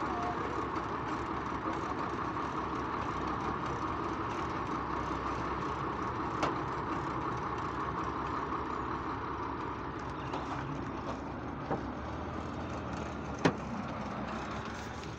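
Steady running of heavy vehicle engines and road traffic, with a few sharp knocks, the loudest near the end.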